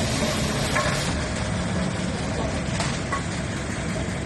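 Truck's diesel engine running with a steady low rumble.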